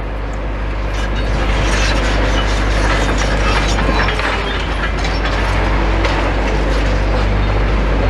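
Demolition excavators working: a steady engine drone under a continuous clatter and crunch of breaking rubble.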